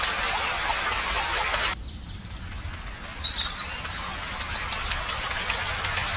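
Steady rain that cuts off abruptly about two seconds in, followed by a quick run of short, high bird chirps.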